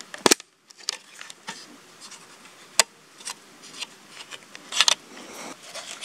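Hands handling a plastic trail camera strapped to a tree: a few sharp clicks of its case and light scraping between them.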